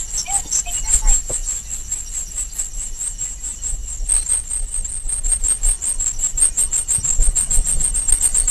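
A car wheel's high-pitched rubbing squeal, pulsing several times a second with the wheel's rotation over low road rumble, stepping slightly higher in pitch about four seconds in. It is the dragging noise of a stone that the owner thinks is caught at the brake.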